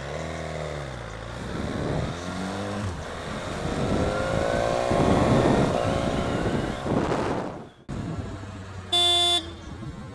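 BMW S1000R inline-four motorcycle engine riding off: the revs fall, then climb as it accelerates, with wind noise over the microphone. It cuts off suddenly, and a short horn toot sounds near the end.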